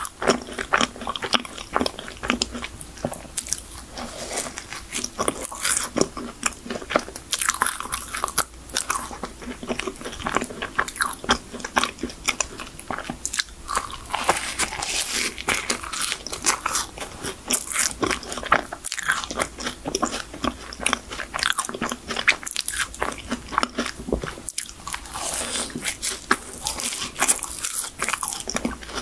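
Close-miked eating of chocolate cream-filled choux pastries: bites into the dusted pastry shell and steady chewing, with many small crackles.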